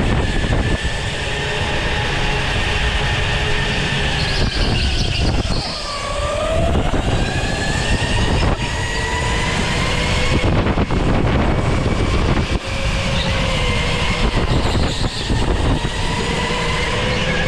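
Go-kart running at speed, heard onboard: a high motor whine that drops in pitch about six seconds in as the kart slows, then climbs again as it accelerates, over a steady rumble of tyres and chassis.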